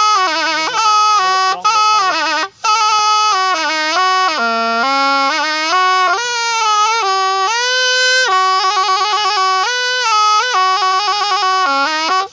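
Thai pi, a reed oboe, playing a solo melody with sliding pitch bends and quick trills, with a short breath break about two and a half seconds in.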